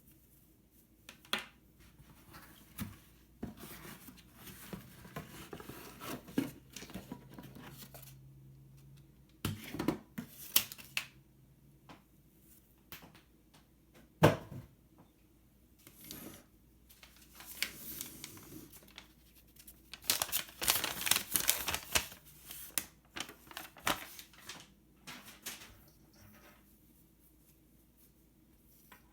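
Hands unpacking and handling a boxed gadget: scattered clicks and knocks with bursts of rustling and tearing of packaging. There is one sharp knock about a third of the way in and the busiest rustling about two-thirds through.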